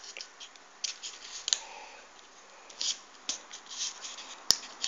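Folded paper units of a 3D origami model being handled and pushed into place: short scattered paper rustles and scrapes, with one sharp click about four and a half seconds in.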